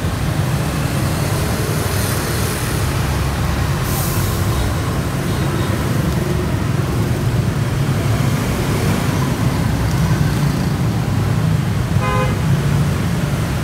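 Steady road traffic running past, with a short horn beep near the end.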